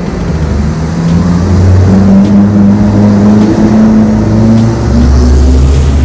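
E-bike hub motor spinning up on the throttle during a test run, its whine climbing in pitch over several seconds and then dropping back about five seconds in.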